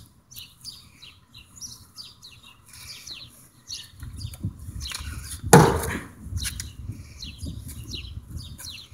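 One hard strike of a long metal bar on a thick door slab, about halfway through: a sharp crack that rings briefly. Small birds chirp throughout.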